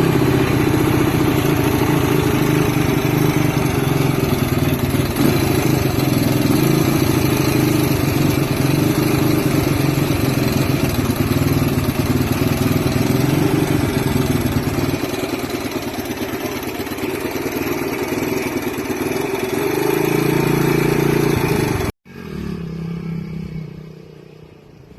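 Dirtbike engine running steadily after sitting fifteen years, freshly started with a cleaned-out carburetor and jets. It drops back a little about two-thirds through, picks up again, then breaks off suddenly near the end, leaving a quieter sound that fades away.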